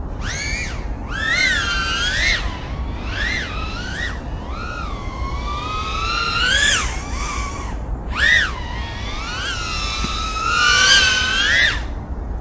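Brushless motors and 3.5-inch props of an FPV cinewhoop drone whining, the pitch sweeping up and down again and again as the throttle is punched and released during freestyle flying. A steady low rumble of wind noise on the onboard microphone lies underneath.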